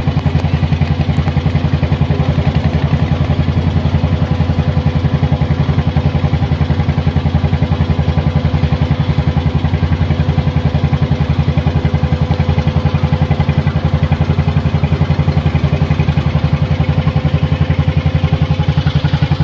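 A motor boat's inboard engine running steadily, a deep, fast, even chugging that holds the same speed throughout.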